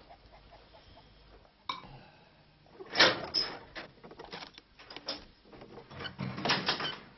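Clatter of earthenware cups, a glass bottle and cutlery being handled on a wooden table: a run of sharp clinks and knocks, loudest about three seconds in, with further clusters a little later and near the end.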